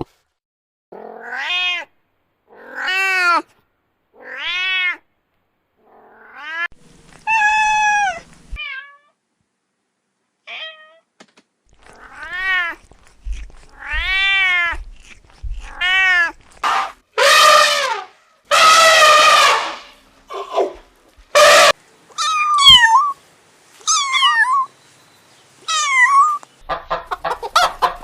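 A cat meowing over and over: drawn-out meows whose pitch rises and then falls, a few louder and harsher ones in the middle, then shorter falling calls. Just before the end a rapid run of quick pulses begins.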